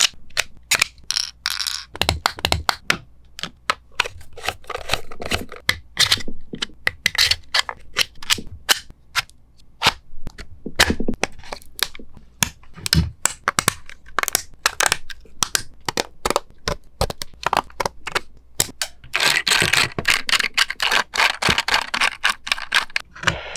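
Many irregular sharp clicks, taps and scrapes of hard plastic as the 3D-printed PLA starship models are handled, with a denser stretch of rattling scrapes near the end.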